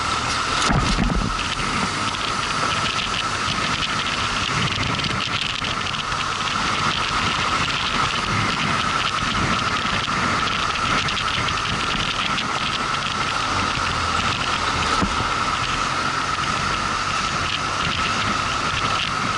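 Motorcycle on the move: steady wind rush and road noise over a low engine rumble, with a steady high whine running through it and a brief low thump about a second in.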